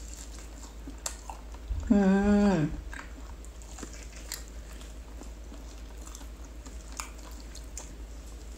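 A person biting and chewing roast turkey leg meat, with scattered small mouth clicks. About two seconds in comes a short hum from the voice.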